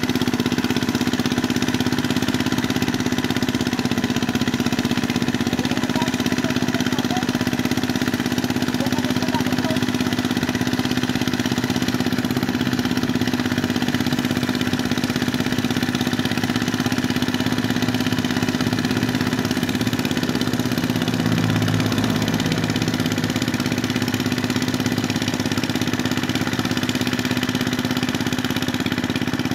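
Small engine of a mud boat tiller running steadily with an even hum while it works through a flooded rice paddy.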